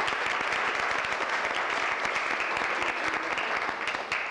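Audience applauding: many hands clapping at a steady level, dying away right at the end.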